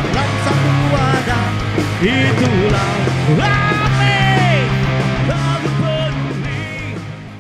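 Rock band playing loud: a bass holding low notes under a lead line with pitch bends and slides. The music fades out near the end.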